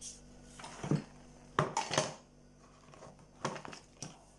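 Paint rollers and their metal roller frames being handled in a paint tray, knocking and clattering against it: a few sharp knocks in small clusters.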